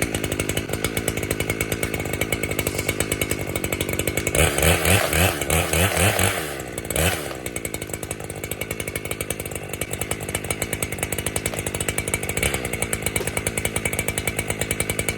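Two-stroke chainsaw running steadily at idle, revved up for about three seconds roughly four seconds in, then dropping back to idle.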